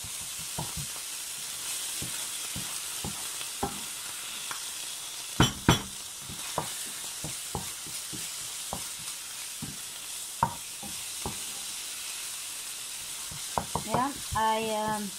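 Wooden spoon stirring a sizzling, oily tomato-and-spice sauce in a frying pan, with scattered clicks and scrapes of the spoon on the pan and two louder knocks about five and a half seconds in.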